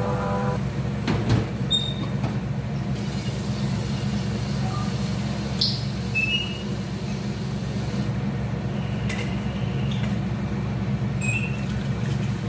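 A steady low mechanical hum throughout, with a few short knocks and light clinks of cookware scattered over it.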